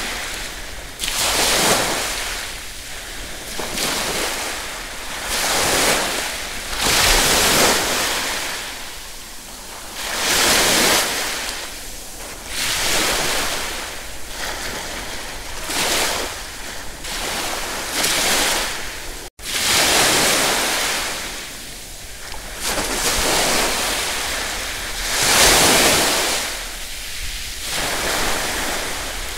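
Ocean surf: waves breaking and washing in, the rush swelling and ebbing every two to three seconds. The sound cuts out for a split second about two-thirds of the way through.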